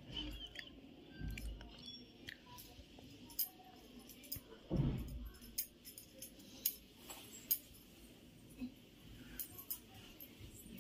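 Bangles clinking faintly in scattered clicks as the wearer's hands massage a face, with a brief low sound near the middle.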